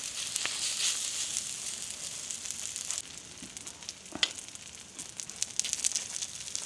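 Food frying in hot oil in a pan, a steady sizzle full of small crackles. It turns quieter about three seconds in, with a sharper crackle a second later.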